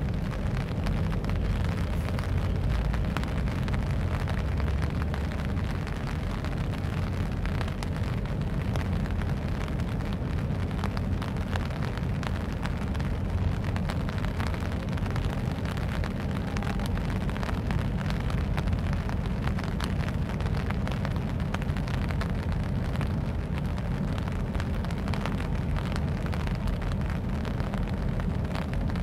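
Wind rumbling on the microphone, with a steady hiss.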